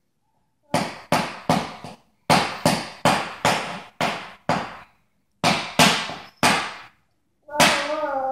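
A run of sharp percussive hits in three quick groups, about two to three hits a second, each fading fast, with complete silence between the groups. Near the end a sustained, wavering pitched tone starts.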